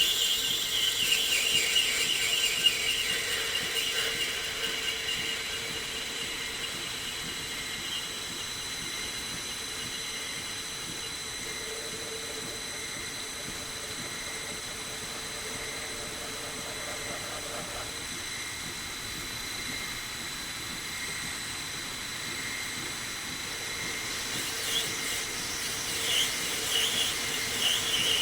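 Lathe running with a steady whine while a sphere-turning attachment makes its cut; the cutting tool squeals during the first few seconds and again near the end.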